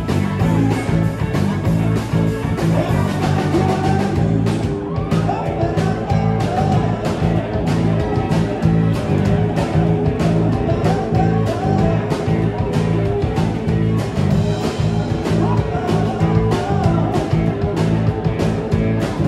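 Live rock band with drum kit and electric guitars playing an uptempo rock and roll song, with a steady drum beat.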